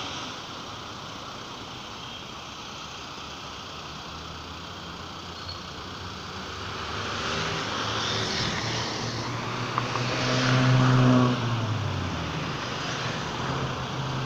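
Street traffic: a motor vehicle's engine grows louder as it approaches and passes, loudest about ten to eleven seconds in, then drops away over a steady traffic hum.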